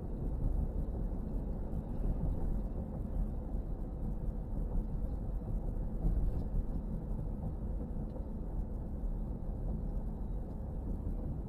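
A car driving on the road: a steady low rumble of road, tyre and engine noise.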